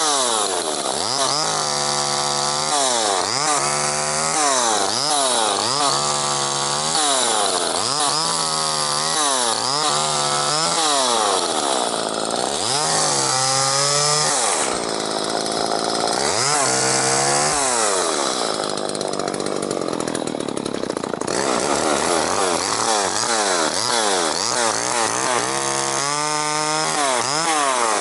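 Two-stroke chainsaw engine revved up and down again and again, about every two seconds. Near the middle it runs steadily at high revs for a few seconds, then drops off suddenly.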